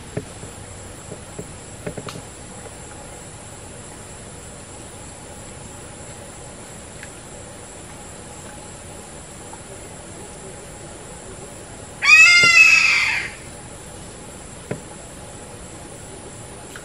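Steady high-pitched drone of rainforest insects, with a few faint ticks and rustles. About twelve seconds in, a wild animal gives a loud chattering call: a fast string of short repeated notes lasting just over a second.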